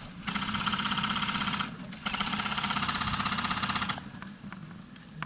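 Airsoft electric gun firing on full auto: two long bursts of rapid, evenly spaced shots, the first starting about a third of a second in, the second running from about two to four seconds in. After that only a few faint, scattered clicks.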